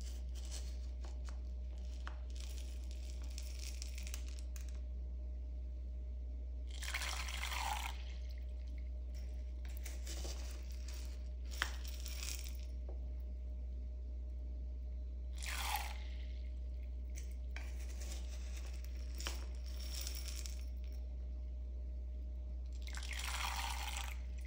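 Dry lentils scooped with a wooden spoon and tipped into a plastic jug of water, each spoonful landing as a brief rattling splash, three pours about eight seconds apart with quieter scooping sounds between them. A steady low hum runs underneath.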